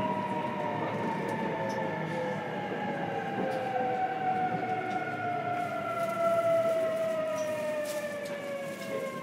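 Traction motor and inverter whine of a JR Kyushu 811 series electric train, heard from inside the motor car. Several tones glide slowly downward together as the train slows under braking, over the low rumble of the wheels and running gear.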